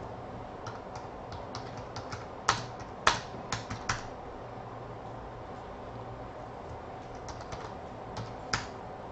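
Computer keyboard typing: scattered light key taps, with a run of louder clacks around two and a half to four seconds in and one more near the end, over a steady low hum.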